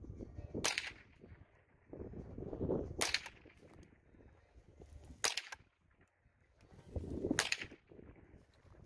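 Smith & Wesson M&P15-22 .22 rimfire rifle fired four single shots, each a sharp crack, about two seconds apart.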